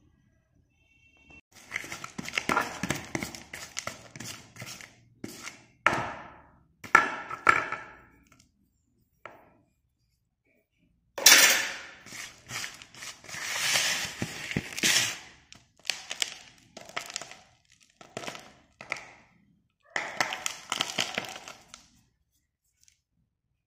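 Broken pieces of slate pencil clattering and crunching in a plastic tub as a hand works through them, in several bursts with short pauses between.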